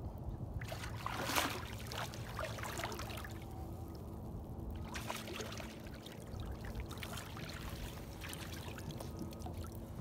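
A hooked redfish thrashing and splashing at the surface beside the boat as it is played to the net, in two spells: from just under a second in to about three and a half seconds, loudest about a second and a half in, and again from about five to nine seconds. A steady low rumble runs underneath.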